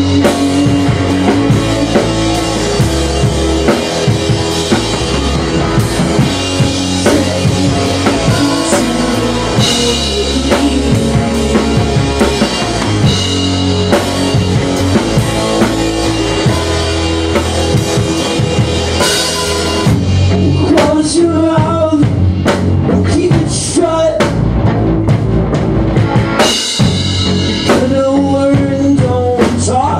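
A rock band playing live in a small room: electric guitar through an amp, a second guitar or bass, and a drum kit with cymbals, all loud. From about twenty seconds in the playing breaks into separate hits with short gaps between them, and the full band comes back near the end.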